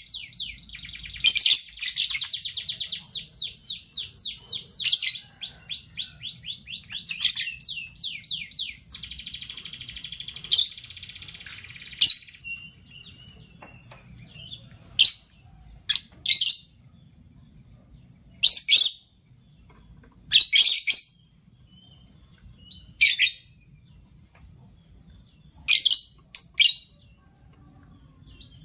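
Caged lovebirds chattering: a rapid, continuous run of shrill chirps for about the first twelve seconds, then single loud, sharp chirps every second or two, some in quick pairs.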